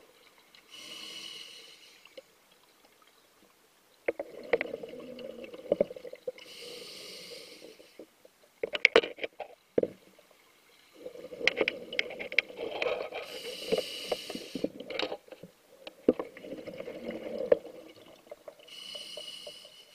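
Scuba regulator breathing underwater: a short whistling hiss of inhalation through the regulator, then a longer rumbling, crackling rush of exhaled bubbles, about four breaths in a slow, even cycle.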